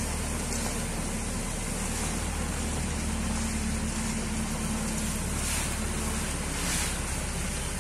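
JCB 3DX backhoe loader's diesel engine running steadily as the machine drives slowly along, a low continuous hum. A higher steady tone joins for about two seconds in the middle.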